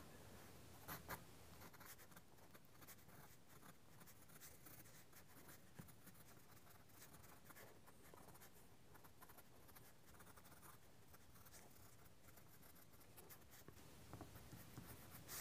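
Faint, intermittent scratching of a soft 7B graphite pencil sketching on paper.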